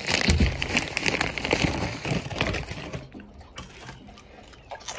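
A crinkly plastic chip bag rustling as a hand rummages inside it, dying down after about two seconds.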